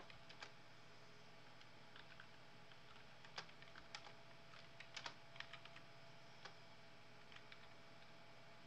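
Faint, irregular key clicks of typing on a computer keyboard, a scattered cluster of louder ones between about three and five seconds in.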